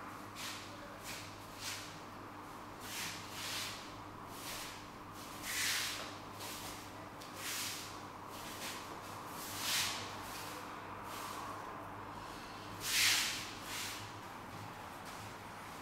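A wooden practice sword (bokken) swishing through the air in repeated cuts, roughly one a second, some swishes much louder than others.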